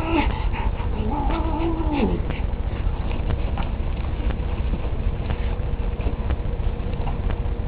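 A cat's drawn-out yowl that drops in pitch as it ends, about two seconds in, followed by scattered light clicks and scuffles over a steady low rumble.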